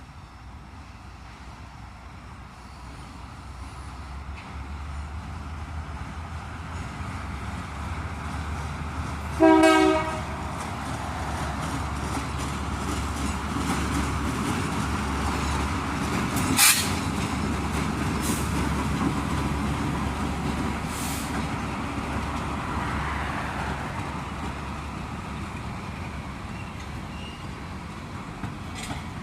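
Diesel freight locomotive approaching and passing with a low engine rumble that swells and then fades, its horn giving one short, loud blast about a third of the way in. A single sharp crack is heard a little after the middle, with faint wheel clicks as the cars roll by.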